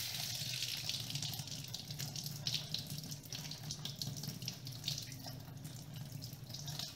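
Kitchen tap turned on and running, the stream splashing over an eggplant held in the hands and into a stainless steel sink while the hands rub the eggplant clean.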